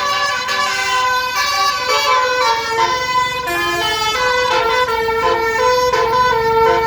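Bus 'telolet' basuri musical horn playing a loud tune: a run of held and short notes stepping up and down, several pitches sounding together, without a break.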